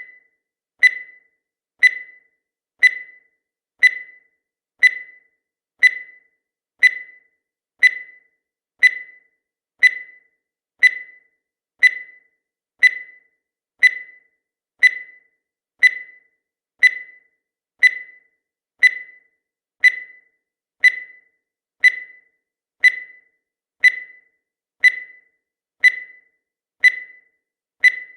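Countdown timer sound effect: a short, high-pitched beep once every second at a perfectly even pace, each one dying away quickly.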